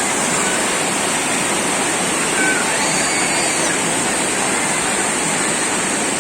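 Steady rushing of water falling from a natural waterfall into a bathing pool.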